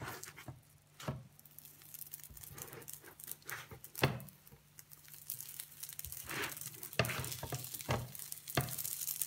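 Buns sizzling in a little oil on an electric griddle as they are flipped by hand and with a silicone spatula, with a few sharp knocks and scrapes as each is turned. The sizzle grows louder in the second half.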